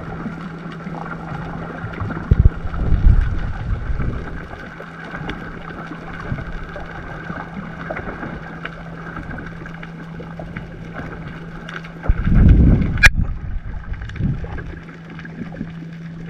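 Boat ambience on the water: a steady low hum with a bed of water and wind noise. Two louder low rushes of wind or water come about two to four seconds in and again around twelve seconds, and there is a sharp click about thirteen seconds in.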